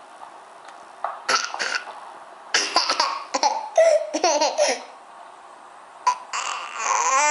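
A toddler laughing: short breathy giggles about a second in, a run of louder bursts of laughter in the middle, and another breathy laugh near the end.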